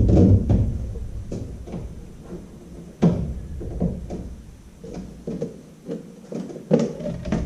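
Irregular knocks and clunks of a fish finder being fitted into its gimbal mount on an aluminium jon boat, the loudest about three seconds in and again near the end.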